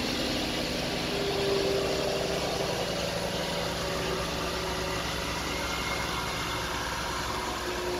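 Small single-cylinder engine of a Polaris Ranger 150 EFI youth side-by-side idling steadily, with an even low, pulsing rumble.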